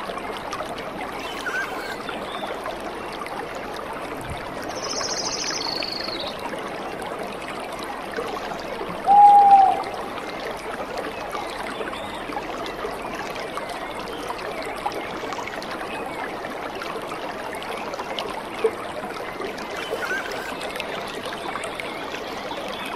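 Steady rush of a waterfall's falling water. A short high whistle-like sound comes about five seconds in, and a brief, louder tone near nine seconds.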